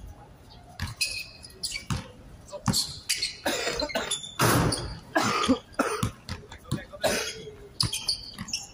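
Outdoor pickup basketball game: a basketball bouncing on the court with sharp knocks from play, and short bursts of players' voices, loudest about halfway through.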